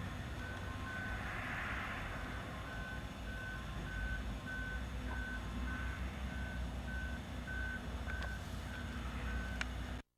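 A vehicle's reversing alarm beeping at an even pace, a little over one and a half beeps a second, over a low steady engine rumble; the beeping stops near the end.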